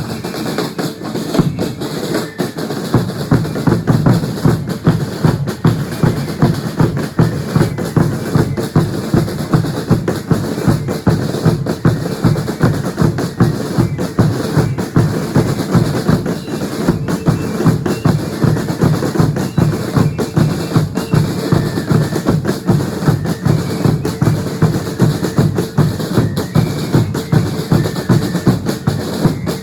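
Drums of a religious dance troupe beating a steady, even rhythm.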